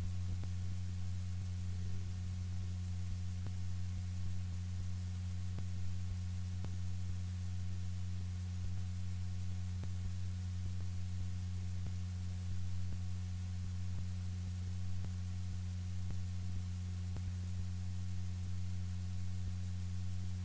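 Steady low electrical hum, with a fainter second hum tone above it and a light hiss, unchanging throughout.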